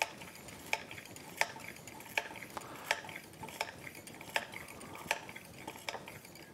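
Hand-lever pump of a gearcase pressure tester being worked in a steady rhythm, a short metallic click at each stroke, about three strokes every two seconds. It is pressurising a resealed outboard lower unit towards 12 PSI to check that the seals hold.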